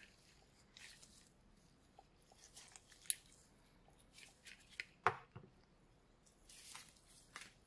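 Light rustling and scattered clicks of box packaging and small accessories being handled, with a sharp click about three seconds in and a louder knock about five seconds in.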